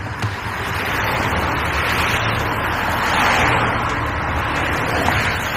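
Cars overtaking a bicycle on a country road: a rush of tyre and engine noise that builds and swells as each car goes by. It is loudest about three seconds in, then swells again near the end as the next car comes up.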